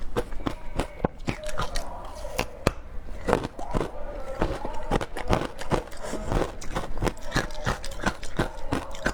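Frozen passion fruit ice crunched between the teeth: a quick run of sharp cracks, several a second.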